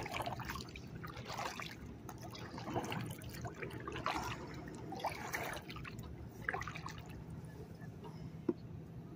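Kayak paddle dipping and pulling through the water in alternating strokes, about one every second and a quarter, with water trickling and dripping off the blades; the strokes stop about seven seconds in. A single sharp knock near the end.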